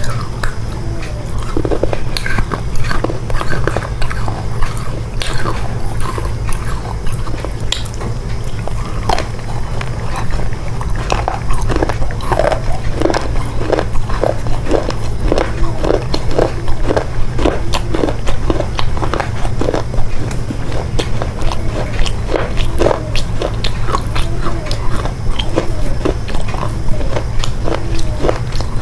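Someone biting and chewing chocolate close to the microphone, with wet clicky mouth sounds that settle into a steady chewing rhythm of about two chews a second partway through.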